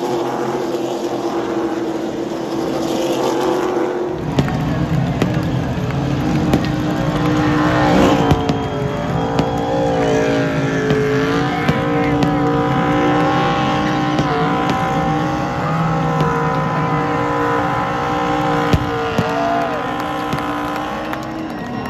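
SRX stock cars' V8 engines running on the oval, then, from about eight seconds in, one car's V8 held at high revs in a burnout, its pitch wavering up and down as the rear tyres spin, with some tyre squeal.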